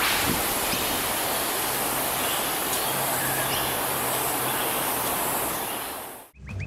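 Steady outdoor rushing noise, even from low to high pitch, that fades out about six seconds in.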